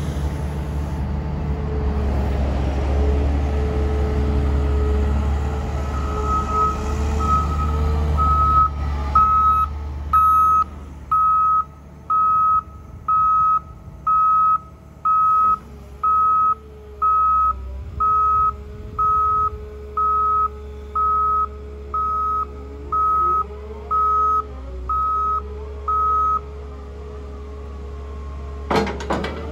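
Caterpillar M322D MH wheeled material handler's diesel engine running, with its warning beeper sounding about once a second from about six seconds in until near the end. Just before the end comes a short sharp noise and a rising whine.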